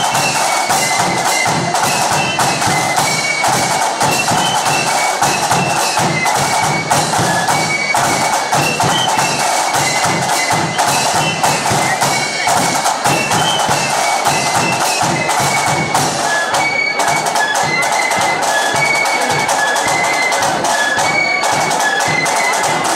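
Marching flute band playing a tune: high flutes carry the melody over rapid snare drum strokes and a bass drum beat, all loud and continuous.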